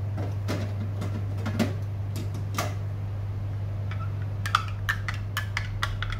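A plastic spoon stirring a drink in a glass mug, clicking and clinking against the glass several times in the last two seconds, over a steady low hum. A few sharper clicks come earlier, in the first three seconds.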